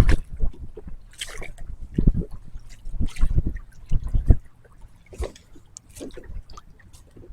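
Water splashing and dripping beside a kayak as a hooked bream is brought up to the side. A run of irregular small splashes, loudest through the first four seconds, then fainter drips.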